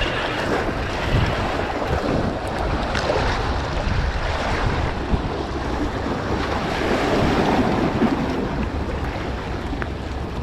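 Strong wind buffeting the microphone with a gusty low rumble, over a steady wash of surf and water.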